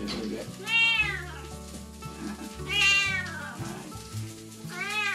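Domestic cat meowing three times, about two seconds apart, each call rising and then falling in pitch.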